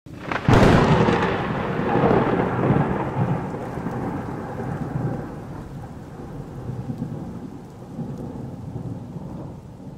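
A thunderclap breaks about half a second in and rumbles away slowly over a hiss of rain.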